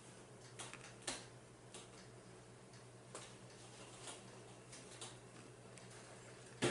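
A person chewing tacos close to the microphone: irregular small crunches and mouth clicks about two a second, with a louder one near the end, over a faint steady low hum.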